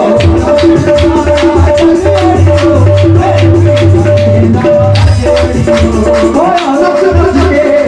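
Live qawwali music: held harmonium-like notes over a steady percussion beat with sharp, evenly spaced strikes and a deep drum underneath.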